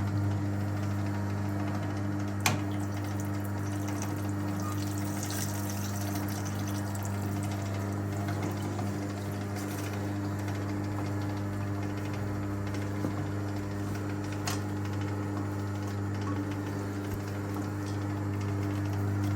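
1958 Hotpoint Empress washing machine's motor running with a steady hum, driving the power wringer as towels are wrung out, with water running off into the tub. A sharp click about two and a half seconds in and another later on.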